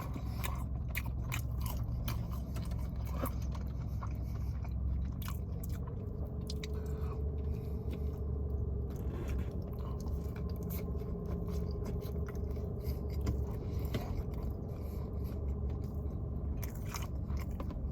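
Close-miked chewing of fast food, with many irregular wet mouth clicks and crunches, over a steady low hum.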